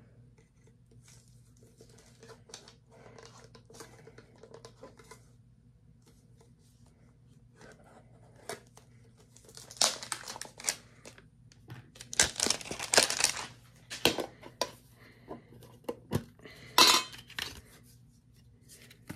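Plastic shrink wrap being torn and crinkled off a small metal trading-card tin in several short rips. The loudest rips come about two-thirds of the way through, after a quiet stretch of light handling taps.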